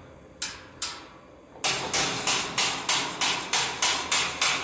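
Hammer striking the steel of a welded gate: two separate blows, then from about a second and a half in a quick steady run of about three louder blows a second, each ringing briefly, as slag is knocked off the weld.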